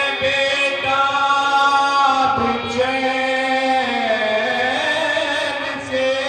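A voice singing a slow, drawn-out melodic line into a microphone, amplified through a loudspeaker system, with each note held for a second or more before stepping to the next pitch.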